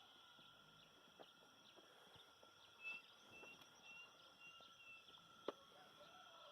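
Faint rural dawn ambience: a bird gives a run of about six short high notes in the middle, over a steady high hum, with a few faint knocks.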